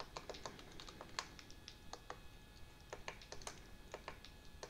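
Faint, irregular clicking of buttons and switches on an RC radio transmitter, pressed several times a second while navigating the menu to set a servo's sub trim.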